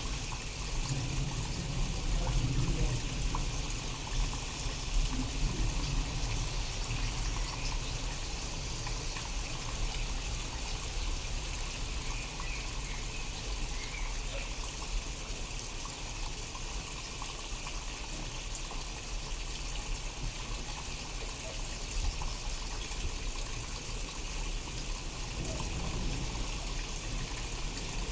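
Steady rain falling during a thunderstorm, with a low rumble of thunder swelling in the first few seconds and more faintly near the end.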